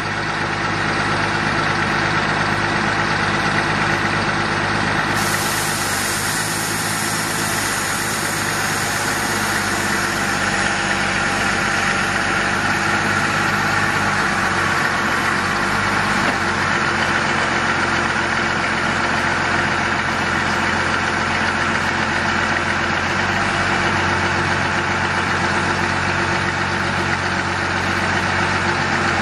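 Caterpillar 3116 six-cylinder diesel engine in a 1994 Chevrolet Kodiak truck, idling steadily, with a slight change in its note about halfway through.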